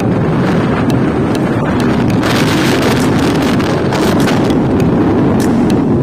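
Road and wind noise from a moving vehicle: a steady low rumble with wind buffeting the microphone and scattered small ticks.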